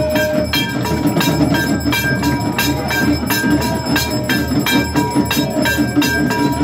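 Temple bells ringing without a break during aarti: metallic strikes about three or four a second, each leaving a lingering ring, over a rhythmic low beat.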